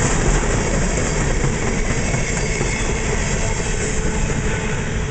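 Coal hopper cars of a freight train rolling past at speed: a steady, loud noise of steel wheels running on the rails.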